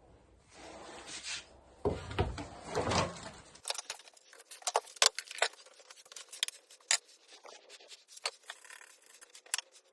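Light clattering and tapping of small objects being handled. It begins with a rumbling rustle, then changes abruptly about three and a half seconds in to a quick run of sharp clicks and taps.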